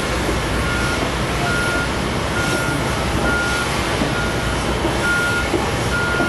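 A vehicle's reversing alarm beeping, one high steady tone about once a second, over a steady rumble of jet engines across the airfield.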